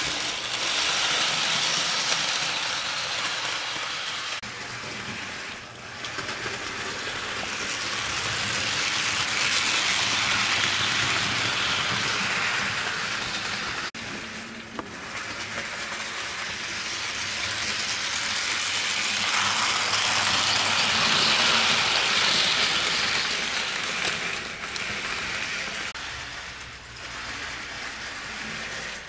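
HO scale model train, a 2-8-2 steam locomotive with its cars, running on the layout track: the motor and wheels make a steady mechanical rattle. The rattle swells as the train passes close and fades as it moves away, three times over.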